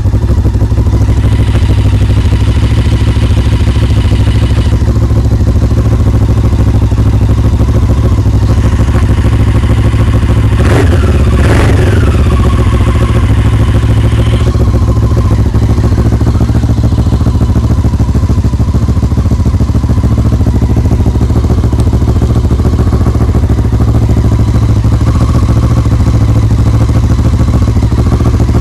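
Honda CB500's parallel-twin engine running steadily as it warms up after a cold start. About ten seconds in, the throttle is blipped once and the revs rise and fall back within about a second and a half.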